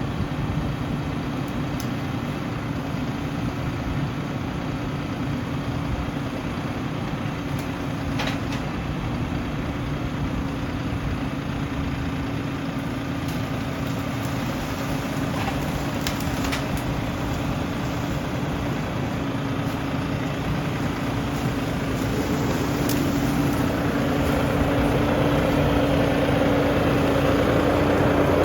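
Tractor engine running steadily, growing louder over the last few seconds.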